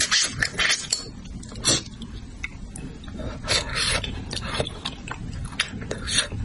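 Close-miked mouth sounds of someone eating spicy braised crucian carp: irregular wet chewing, smacking and sucking noises in quick, uneven bursts.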